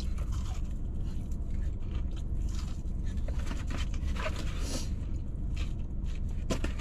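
Eating sounds from a foam takeout box of fried chicken tenders and fries: scattered rustles, clicks and chewing over a steady low hum inside a car.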